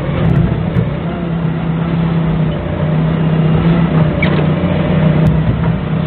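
A Doosan 4.5-ton forklift's engine running steadily at an even pitch, with a few light clicks, while it carries a refrigerator on its forks.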